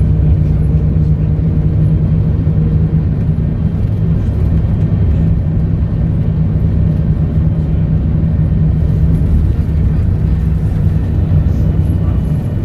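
Volvo B7RLE bus's diesel engine running at a steady, low hum without any rise or fall in revs.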